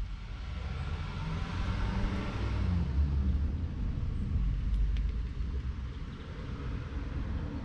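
Six-cylinder 6.8-litre diesel engine of a Claas Arion 610 tractor running at idle with a steady low rumble. A hiss swells up over the first few seconds and then eases.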